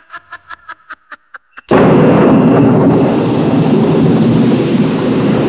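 A man laughing in quick, even bursts. About a second and a half in, a sudden loud thunderclap breaks in and rolls on into a steady rumble and rain that slowly ease off.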